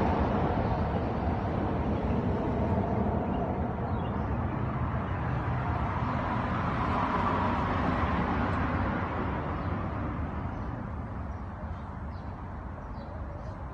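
Steady low background rumble, easing off somewhat in the last few seconds, with a few faint short ticks near the end.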